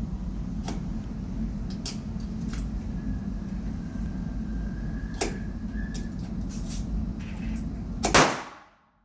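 Pistol shots at a shooting range over a steady low wind-like rumble: a few faint, distant-sounding cracks, then one loud close shot about eight seconds in, after which the sound cuts off.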